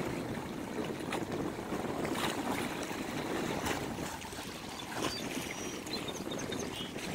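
Small lake waves lapping and washing against shoreline boulders, with a few sharper slaps of water against the rocks.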